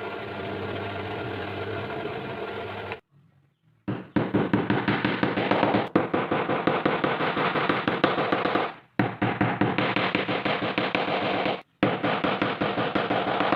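A power tool's motor running steadily, then after a short break a fast, loud rattle of rapid repeated knocks, which stops and starts abruptly several times.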